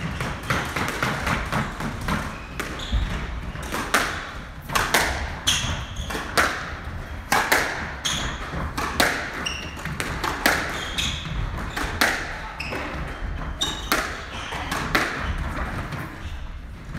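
A squash rally: the ball knocks sharply off rackets and the court walls in a quick, irregular string of impacts, mixed with short high squeaks of shoes on the wooden court floor.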